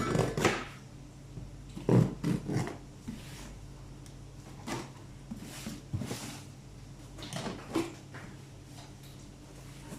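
Packaging being handled and opened: scattered short bouts of rustling and knocking, the loudest about two seconds in.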